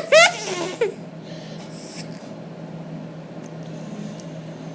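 Drinking-straw reed, flattened and cut to a point, blown to make a loud squawking honk in the first half-second, then a few fainter wavering notes before it stops sounding about a second in. The reed has stopped working, and only a faint low hum remains.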